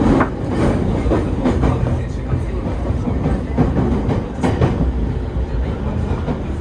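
Commuter train running, heard from inside the passenger car: a steady low rumble with the wheels clicking over rail joints now and then.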